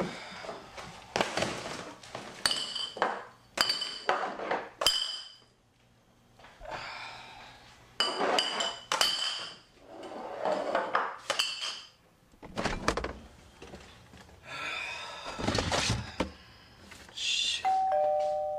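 Empty glass beer bottles clinking against each other and clattering as they are gathered up and dropped into a trash can, with a few dull thunks. About a second before the end, a doorbell chimes two notes, high then low.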